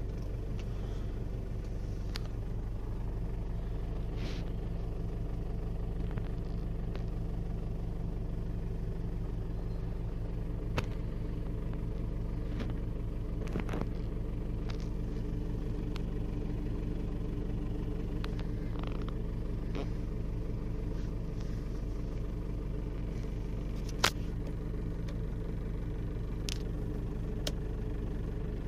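Ford Endeavour SUV crawling over a rough, rutted dirt track, heard from inside the cabin: a steady low engine and road drone. Occasional sharp knocks come as it goes over the ruts, the loudest about 24 seconds in.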